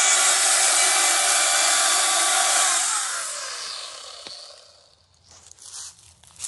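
Chainsaw running at full speed while cutting into a tree trunk. About three seconds in it is let off and winds down, its pitch falling as it goes quiet. Near the end there is light rustling and crunching in dry leaves.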